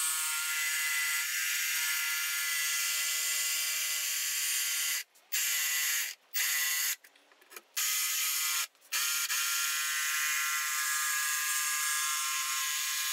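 DeWalt cordless jigsaw running steadily as it cuts through half-inch cabinet board. It stops and restarts briefly four times between about five and nine seconds in.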